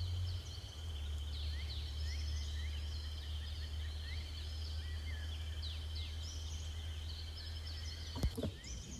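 Several birds chirping and calling in short, quick rising chirps over a steady high-pitched tone and a low hum, with a couple of knocks near the end.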